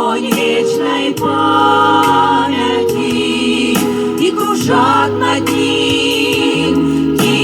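A vocal ensemble singing a song over sustained instrumental chords, the voices wavering with vibrato.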